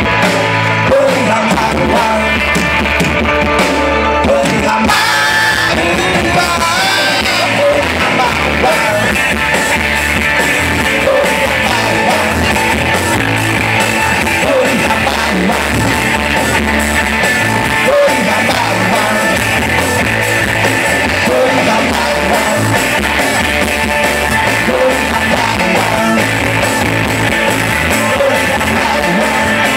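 Live rock band playing loud, with a singer over electric guitars and a drum kit, heard from the audience.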